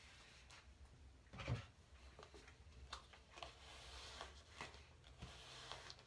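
Soft, faint rustling of a hairbrush being pulled through long hair, in scattered strokes, with a louder dull thump about one and a half seconds in.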